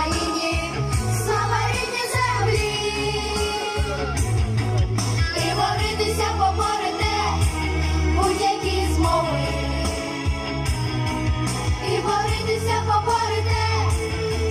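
Children singing a Ukrainian song into microphones over amplified backing music with a steady, heavy bass beat.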